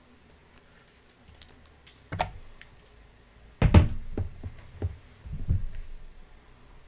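Handling of a MacBook Pro's box and packaging: a scattering of knocks and thumps, the loudest about halfway through, with a few lighter taps after it.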